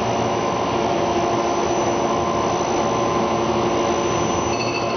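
TruDress wheel dressing machine running with its diamond dressing wheel and borazon (CBN) grinding wheel spinning: a steady mechanical whir and hum with a few held tones. Faint high tones join near the end as the wheel is fed in toward first contact.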